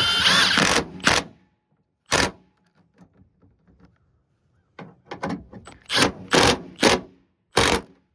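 Cordless impact wrench snugging up the tailgate latch bolts: one burst of about a second, then a string of short trigger pulls.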